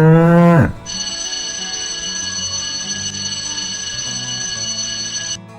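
A cow's moo, rising and then falling in pitch, ends under a second in. It is followed by a steady, high, bell-like ringing tone over background music for about four and a half seconds.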